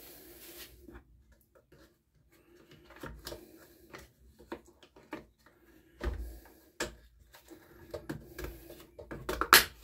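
Handling noises from refitting the air filter and its cover on a two-stroke petrol string trimmer: scattered clicks and light knocks, a heavier knock about six seconds in, and a quick run of sharp clicks near the end.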